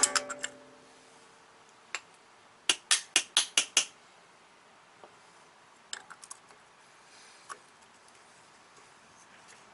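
A metal ratchet striking a new steel dust cap to drive it onto a VW Mk2 GTI rear wheel hub, where one side won't seat. One strike comes about two seconds in, then a fast run of six sharp metallic strikes, followed later by a few faint clicks.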